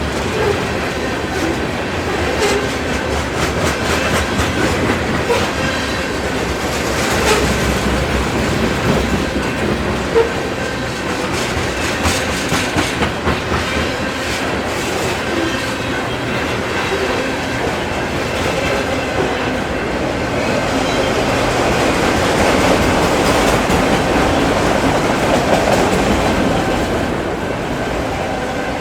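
Freight train cars rolling past, their wheels clacking over rail joints in irregular clusters, with a thin steady squeal from wheels on the rail.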